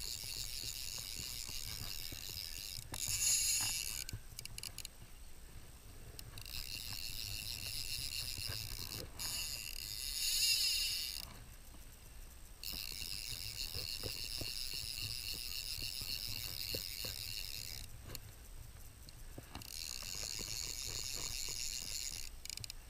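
Fly reel's click-and-pawl drag ratcheting in stretches of several seconds, with short pauses between them, while a hooked rainbow trout is played on the line.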